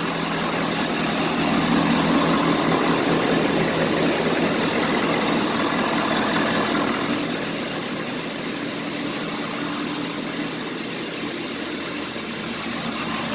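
Pickup truck engine idling steadily after an oil change, oil pressure up and no leaks found; the sound swells somewhat for a few seconds near the start, then settles.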